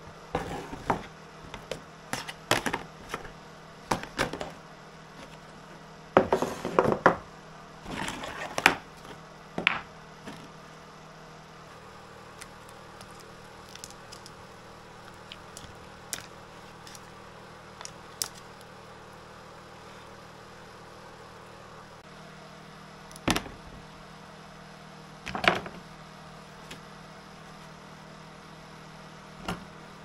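Plastic power plugs clattering and knocking against a stainless steel pot, in a quick run of impacts over the first ten seconds, then single knocks near the end, over a steady low hum.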